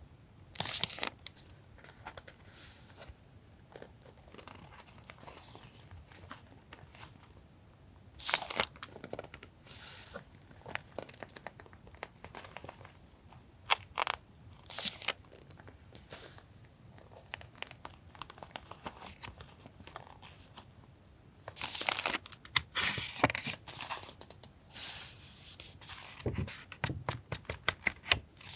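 Paper and packaging being handled, crinkled and torn open: bursts of rustling and tearing come at irregular intervals, with small taps and clicks between them and the loudest stretch about 22 to 25 seconds in.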